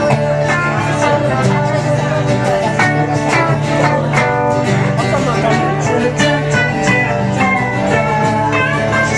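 Band music led by guitar, with a quick run of plucked notes over a steady bass line.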